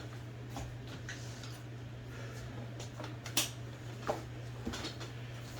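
Scattered light clicks and taps of tools and small metal parts being handled while disassembling an IBM Selectric II typewriter mechanism, over a steady low hum. The sharpest click comes a little past the middle.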